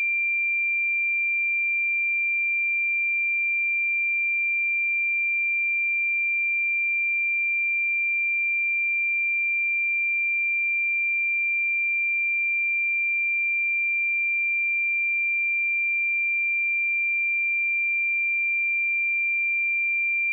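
A steady pure sine-wave test tone at 2372 Hz, a single high unwavering pitch at constant level.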